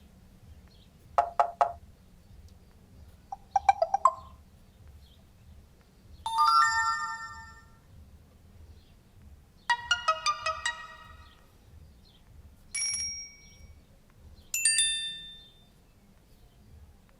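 Samsung Galaxy Y (GT-S5360) phone playing a run of its built-in short tones one after another: six brief chimes, pips and beeps, each a second or so long, a couple of seconds apart.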